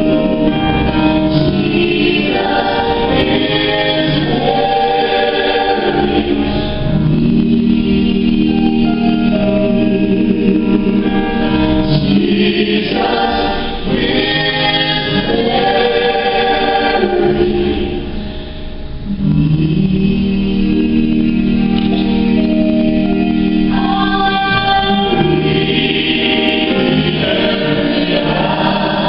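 Live gospel music: a mixed group of men's and women's voices singing in harmony through microphones, with piano accompaniment.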